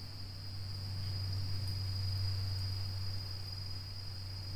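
Night insects trilling continuously at one high pitch over a steady low hum.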